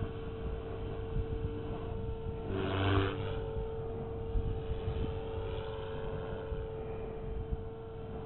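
Blade 360 CFX electric RC helicopter flying overhead, a steady whine from its motor and rotor. About three seconds in the sound swells louder for about a second, with wind rumbling on the microphone throughout.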